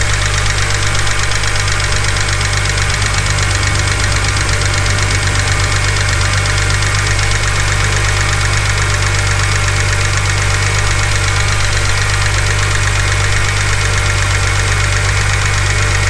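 BMW N52 straight-six engine idling steadily, with a fast, light, even ticking running through it.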